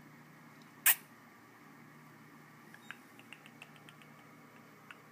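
A single sharp knock about a second in, followed from near the middle by a scatter of faint, light ticks.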